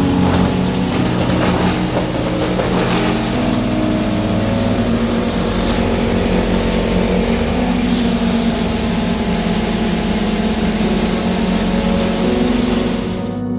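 Industrial wood chipper running under load, chipping wood: a steady machine hum under a broad grinding noise, with a few sharp knocks in the first second.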